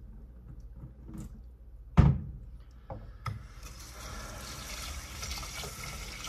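A loud thump about two seconds in and two lighter clicks, then water starting to run steadily from a tap, as when rinsing rice in a rice cooker pot.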